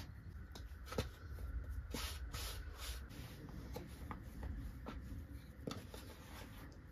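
Wooden rolling pin rolling out dough on a wooden board: rubbing, scraping strokes, with scattered light knocks and clicks of the pin against the board.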